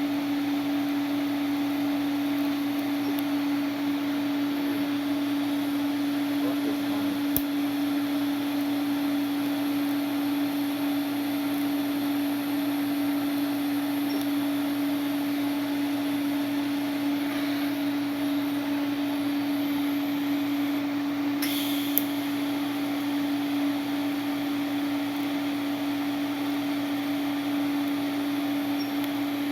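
A steady machine hum with one strong low tone, unchanging throughout, with two brief clicks about seven seconds and twenty-two seconds in.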